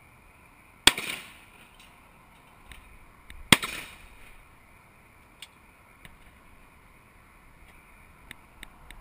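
Two shotgun shots at clay targets, about two and a half seconds apart, each cracking sharply and fading in a short echo.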